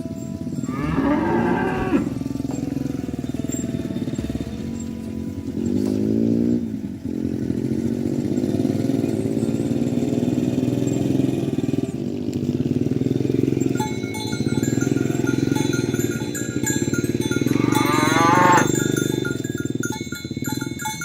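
Cattle mooing, three separate long calls, over a steady low drone.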